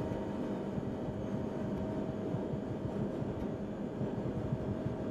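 Steady low mechanical rumble with a constant hum running under it.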